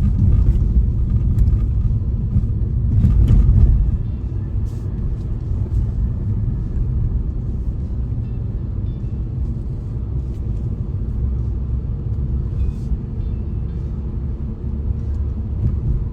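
Steady low rumble of a car driving, heard from inside the cabin: road and engine noise, a little louder for the first four seconds.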